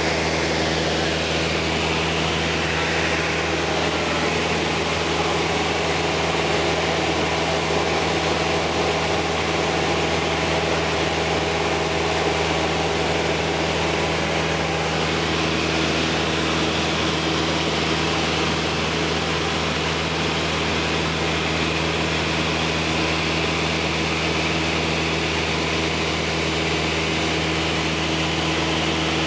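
Single-engine high-wing light airplane's engine and propeller running steadily in level flight, heard inside the cabin as an even drone with a hiss over it.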